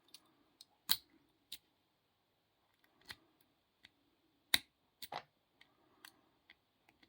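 Irregular small metallic clicks and taps of a Master 130 padlock being handled while its key is tried in the keyway. The loudest clicks come about a second in and around four and a half seconds.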